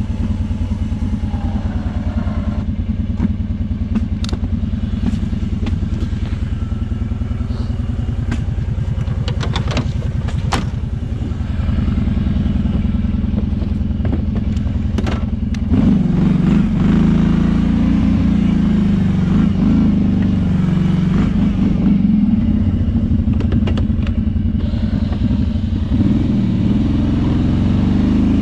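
Kawasaki Brute Force 650i ATV's V-twin engine running steadily at low revs, with a few sharp clicks. A little past halfway it revs up and runs louder, its revs rising and falling.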